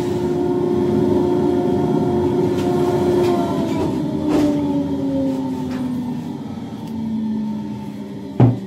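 Flex-shaft rotary tool running free with a steady whine, its pitch falling slowly over the last five seconds or so as the motor slows. A short knock comes near the end.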